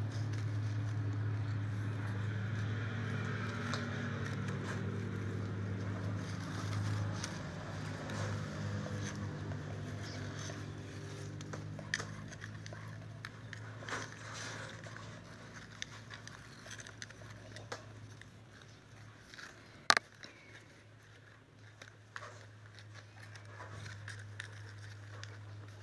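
Strips of fresh coconut leaf rustling and scraping against each other as they are woven into a ketupat casing, with scattered small clicks and one sharp click about twenty seconds in. A steady low hum sits underneath, strongest over the first several seconds and then fading.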